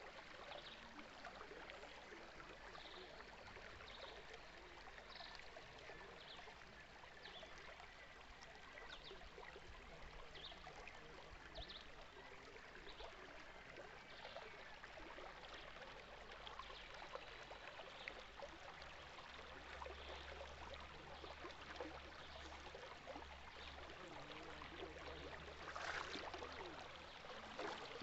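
A stream of water flowing and trickling, a faint, steady rush with small splashy flickers.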